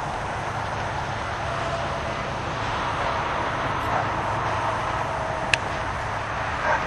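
Steady outdoor background noise without a clear pitch, with one sharp crack about five and a half seconds in.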